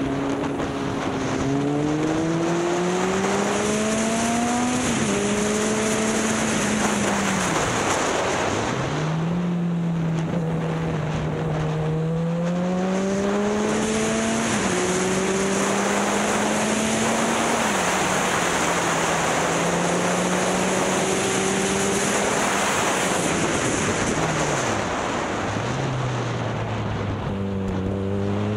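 Motorcycle engine pulling under throttle, its note climbing and then dropping back at gear changes or when the throttle eases, several times over, under a loud rush of wind on the microphone.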